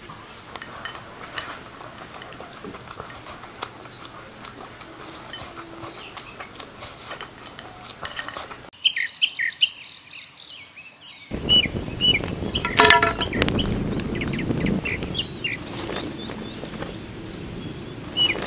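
Faint outdoor background with scattered small ticks, then from about halfway on, repeated short falling bird chirps. A sharp knock rings out about two-thirds of the way through.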